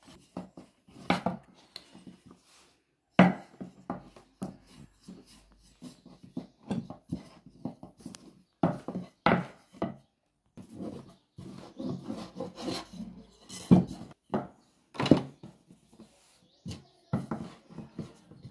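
Wooden rolling pin working laminated croissant dough on a wooden tabletop: uneven rolling rumbles and scrapes, broken by several sharp knocks of wood on wood.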